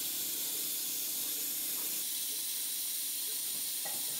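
A steady, high-pitched hiss with no speech.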